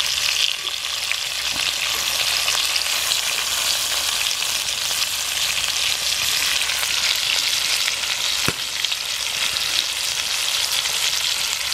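Pork pieces sizzling in hot oil in a skillet over a wood fire, a steady crackling hiss. A single sharp click about eight and a half seconds in.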